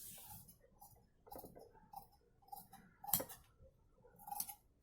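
Faint scattered clicks and taps from handling patterns and tools on a cutting table, the sharpest about three seconds in and another just before the end.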